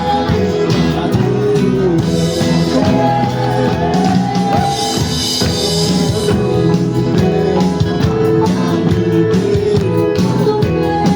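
Music with singing over a steady instrumental accompaniment.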